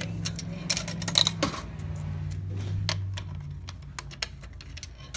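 Coins clinking and clicking at a claw machine's coin slot, a scatter of small sharp metallic clicks. A low steady hum runs underneath and fades after about three and a half seconds.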